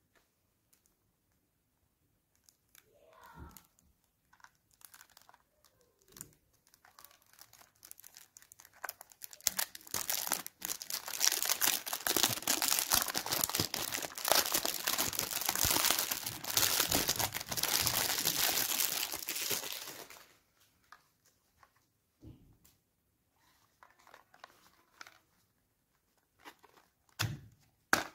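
Clear plastic cellophane wrap crinkling and tearing as it is peeled off a small cardboard product box, a dense crackle lasting about ten seconds in the middle. Lighter rustles and a few clicks of cardboard packaging being handled come before and after it.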